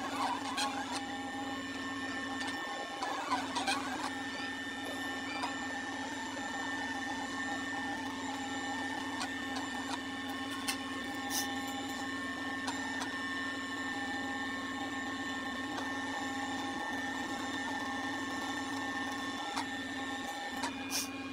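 Silhouette Cameo cutting machine running a cut on a printed sheet on its mat: a steady motor whir whose tones stop and restart as the carriage and mat change direction, with a few sharp clicks.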